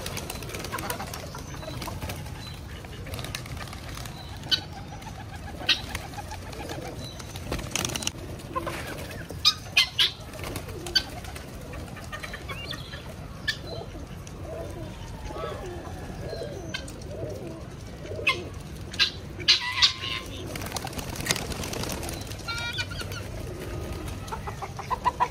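Flock of pigeons cooing, with sharp wing claps and flapping at several points as birds flutter up and resettle.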